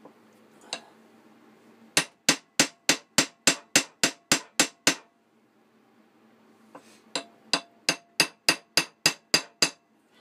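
Small ball-peen hammer tapping on the end of the pin through an antler knife handle, peening it over so the pin cannot move. A single tap, then two quick runs of about ten strikes each, roughly three a second, with a short pause between the runs.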